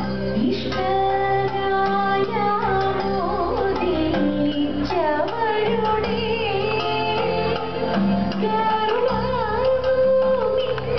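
Women's voices singing a Malayalam Thiruvathirakali song over instrumental accompaniment with steady low held notes beneath the melody.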